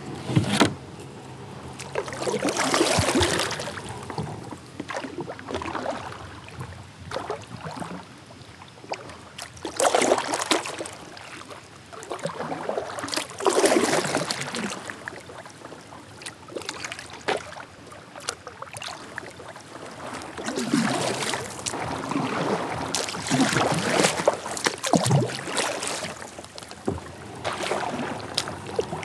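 Kayak paddle strokes splashing in the river, a swell of splashing and dripping water every three to four seconds, with a couple of sharp clicks near the start.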